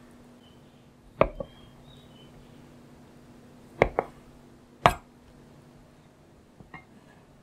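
Chef's knife cutting through raw pork neck and striking a wooden cutting board: a few sharp knocks, a close pair about a second in, another pair near four seconds, a single one near five seconds, and two faint taps near the end.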